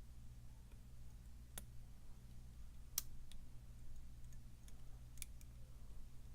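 Faint, scattered clicks of a lock pick working the key pins of a pin-tumbler challenge lock under tension, a few irregular ticks with the sharpest about three seconds in, over a steady low hum.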